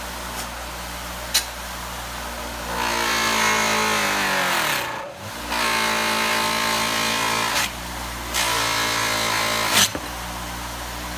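Electric bench buffer with a cloth buffing wheel running steadily while a metal pinball guide is pressed against it in three passes to polish out sanding lines. Each pass makes the sound louder, and in the first the motor's pitch sags under the pressure. A couple of sharp clicks are heard.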